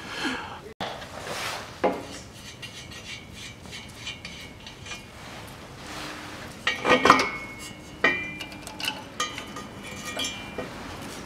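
Metal hand tools clinking and scraping against steel exhaust-system parts under a car, with a burst of sharp metallic clanks about seven seconds in, followed by short ringing clinks.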